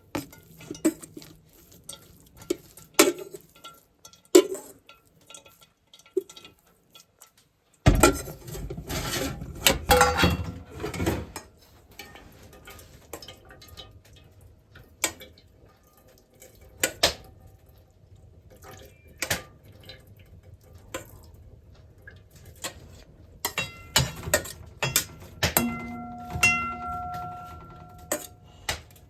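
Intermittent clinks, knocks and clatter of hard objects being handled, busiest about a third of the way in, with a brief ringing tone near the end.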